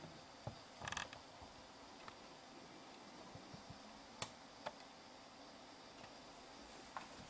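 Faint, scattered clicks of a computer mouse, with a short rattling creak about a second in, over quiet room noise.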